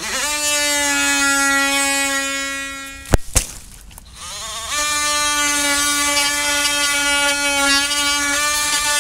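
A cordless DeWalt oscillating multitool buzzes steadily as it cuts rotted wood out of a window sill. It runs for about three seconds and stops, there are two sharp knocks, and then it runs again for about five seconds.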